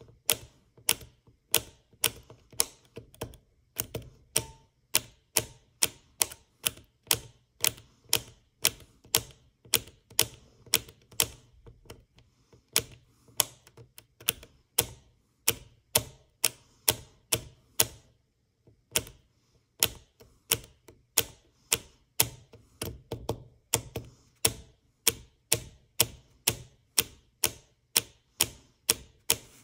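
Push-button switches from a Tektronix 7904 oscilloscope being pressed over and over, sharp clicks about two to three a second, with a short pause a little past the middle. The sticky buttons are being worked free after a dose of WD-40.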